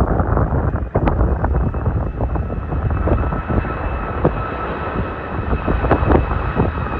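Jet airliner's engines running, a steady two-note whine that grows clear about two seconds in, under heavy wind buffeting on the microphone.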